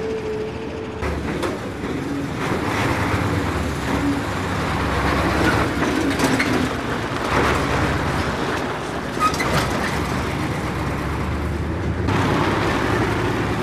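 Military convoy of armoured vehicles and army trucks driving past, with a continuous low engine rumble and a few clanks.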